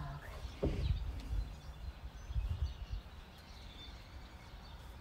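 Quiet outdoor ambience: a low rumble with faint bird chirps, and a couple of soft knocks in the first second.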